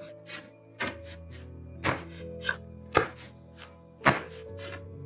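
Tarot cards being laid out on a table: a quick run of sharp taps and slaps, roughly two a second, over soft background music.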